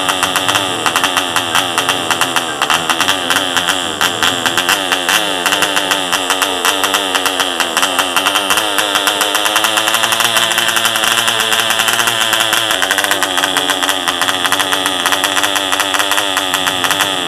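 A 1960 M.E. Heron 1 cc model diesel engine running fast, its rapid firing rattling like an old machine gun, with the engine speed wavering up and down.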